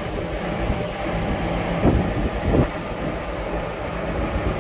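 Steady low rumble with a faint hum, typical of a ship's machinery heard on deck with wind on the microphone. Two short knocks sound about two seconds in.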